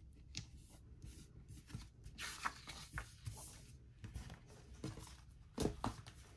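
Paper handling on a desk: a sticker rubbed and smoothed down onto a planner page, with light rustling and scraping of paper and a few small clicks, and a soft knock about five and a half seconds in.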